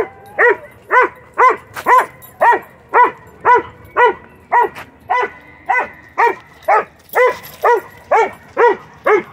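A dog barking steadily and repeatedly, about two sharp barks a second, at a kite in the air.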